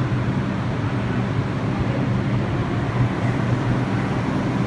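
Steady low hum of a subway terminal: machinery droning with two steady low tones under an even rumble.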